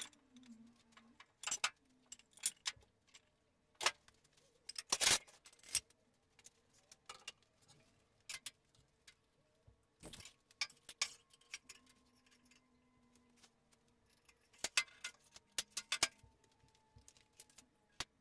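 Irregular metallic clicks, clinks and knocks of hands handling parts and hardware on a sliding table saw's steel cabinet, loudest about five seconds in and in a quick cluster near the end.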